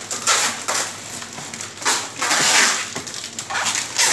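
Irregular bursts of rustling, crackling handling noise, about one burst a second, with no speech over them.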